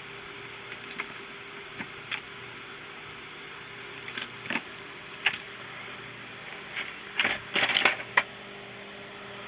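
Small metal tools clinking and clattering as they are handled and set into a toolbox tray. Scattered light clicks, with a busier run of clatter about seven to eight seconds in.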